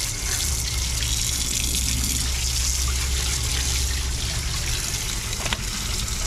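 Tap water running steadily and splashing over fish being rinsed by hand in a concrete sink.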